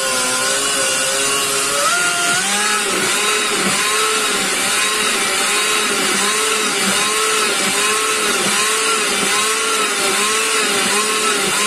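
Countertop blender running, mixing a thick batter of Coca-Cola, sugar and butter. The motor's pitch wavers up and down about one and a half times a second.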